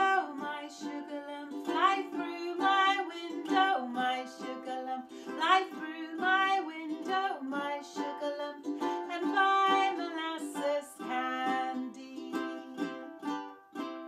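A woman singing a simple children's song to her own ukulele strumming. Near the end the singing stops and the last strummed chord rings out.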